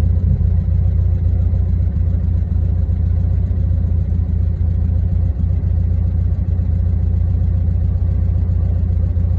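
Wind buffeting the phone's microphone: a loud, steady low rumble that flickers constantly.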